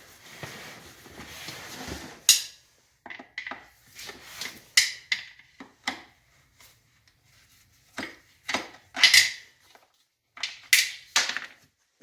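A Phillips screwdriver working the shroud screws out of a plastic pancake air compressor housing: a rasping scrape at first, then a string of sharp clicks and knocks of metal tool against plastic.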